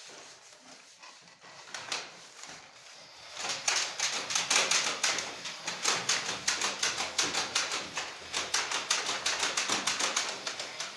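A fast run of sharp clicks or taps, several a second, starting a few seconds in and keeping up an even rhythm.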